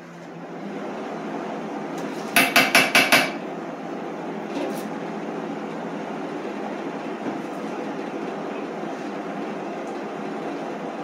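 Five quick, ringing metal knocks in under a second, about two and a half seconds in, over a steady mechanical whir.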